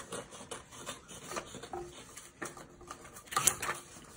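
Scissors cutting through a sheet of construction paper in a series of light, crisp snips, with a louder rustle of the paper being handled about three and a half seconds in.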